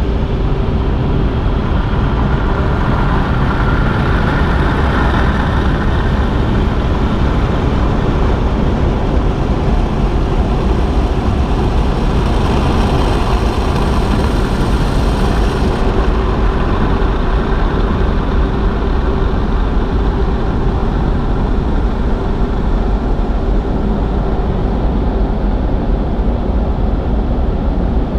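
Automatic car wash heard from inside the car: a steady drone of wash machinery with a faint hum, as hanging cloth wash strips sweep over the windshield. A brighter hiss joins about twelve seconds in and cuts off suddenly about four seconds later.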